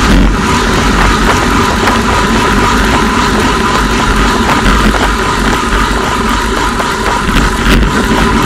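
Steady wind rush and tyre noise from a road bike riding at about 40 km/h in a group, heard on a bike-mounted camera's microphone, with a heavy low rumble.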